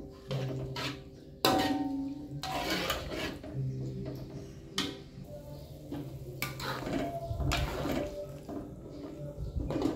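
Metal spatula scraping and clanking against a wok as chicken in thin broth is stirred: a handful of separate clatters over soft background music.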